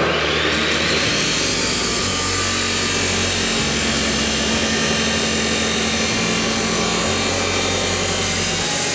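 DeWalt abrasive chop saw cutting through steel: a rising whine as the blade spins up in the first second, then a loud, steady grinding of the wheel in the metal, which cuts off suddenly at the end.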